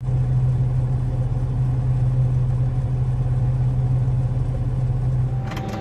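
John Deere Maximizer combine running while it unloads oats through its auger into a wagon: a loud, steady diesel drone with a strong low hum. The drone stops abruptly near the end.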